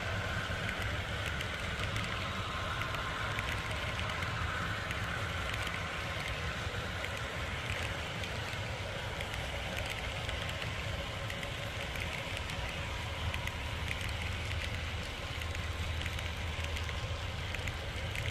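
Model railroad flatcars loaded with trailers rolling past on the track: a steady rolling clatter of small metal wheels on rail.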